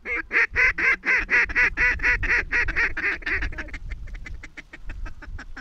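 Mallard duck call blown in a long series of quacks, about four a second and loud at first, then quicker and fainter toward the end.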